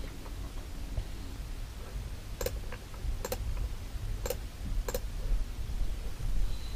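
Computer mouse clicking four times at an uneven pace over a couple of seconds, while browsing.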